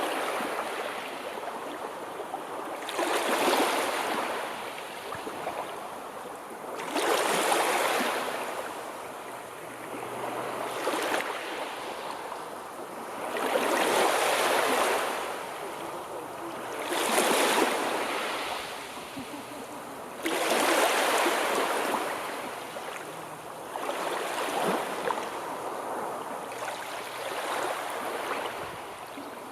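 Sea waves breaking and washing in, one surge every three to four seconds with a softer hiss of water between them.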